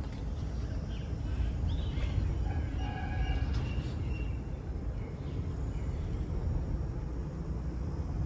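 Outdoor field ambience: a steady low rumble, with a short bird call about three seconds in.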